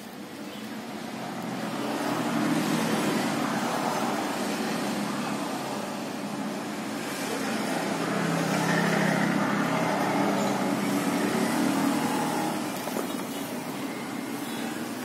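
Motor vehicles passing: engine and road noise swells about two seconds in, eases off, then swells again in the middle before fading.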